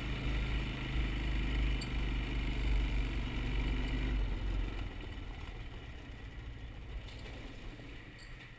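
Quad (ATV) engine running at low speed, a steady low hum, turning quieter about halfway through as the machine eases off.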